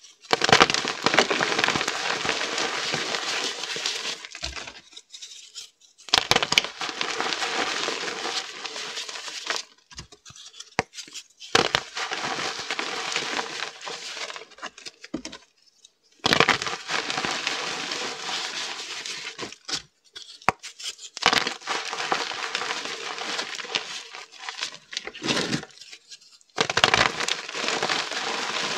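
Reformed gym chalk squeezed and crumbled by bare hands into powder, giving a dense, crisp crunching. It comes in long stretches broken by several short pauses.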